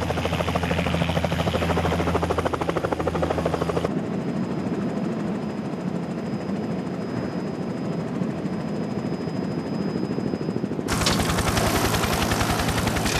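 Helicopter in flight: the fast, even chop of the main rotor over a steady turbine drone. About four seconds in it turns duller and quieter, with a thin high whine, as heard from inside the cockpit. The loud, sharp rotor beat comes back near the end, as heard through the open cabin door.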